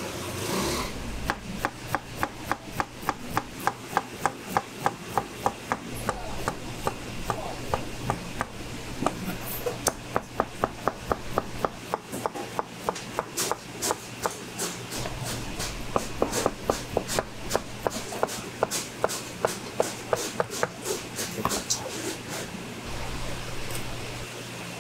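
Knife chopping on a cutting board, about three sharp strokes a second in runs with short pauses between.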